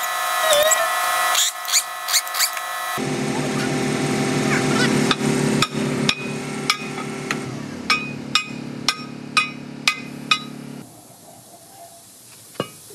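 Hammer blows ringing on steel at an excavator's final drive sprocket, a run of sharp strikes about two a second, over a steady droning hum. Near the end it goes quieter, with a single strike.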